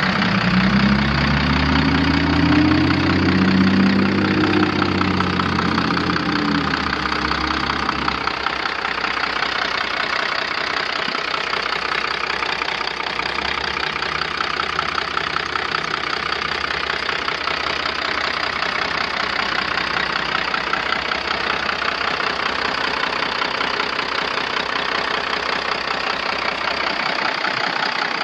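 Diesel engine of a Ford F600 truck, a 6.6 L six-cylinder, revved up and back down over the first several seconds, then idling steadily.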